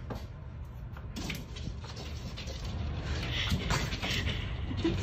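A cat's claws scratching and scrabbling on the wall and window ledge as it climbs and hangs there, many quick scrapes that grow louder, over a low steady hum.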